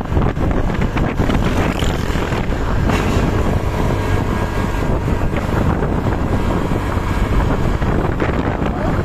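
Bus running along the road: steady engine and road noise, with wind buffeting the microphone.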